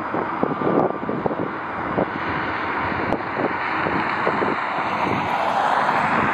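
Jet airliner engine noise that swells slightly toward the end, with wind buffeting the microphone.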